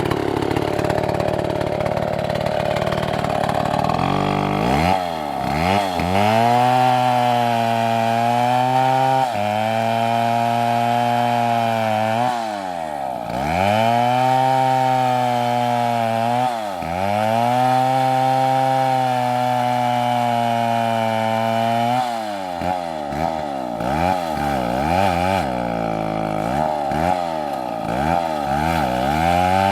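Chainsaw running at high revs while cutting wood, its engine pitch dipping sharply and climbing back every few seconds. In the last several seconds the revs rise and fall more quickly.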